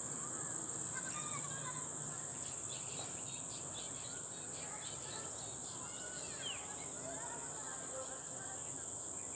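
Steady high-pitched drone of insects chirring in the fields, with short bird chirps and calls over it, several of them about a second in and again past the middle.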